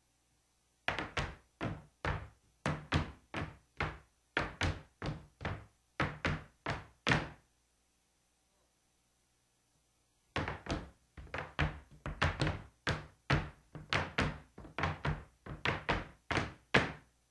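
Zapateado footwork: hard-heeled dance shoes and boots stamping on a stage floor in quick, even runs of strikes, about three to four a second. The stamping stops for about three seconds midway through, then starts again.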